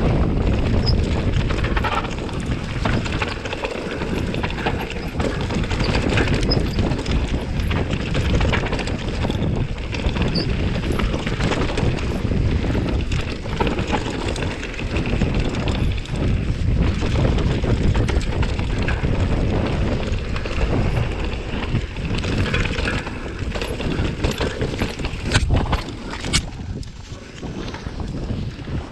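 Mountain bike riding a dirt trail: wind buffeting the microphone over the rough noise of tyres on the ground, with many small clicks and rattles from the bike over bumps and a sharp knock near the end.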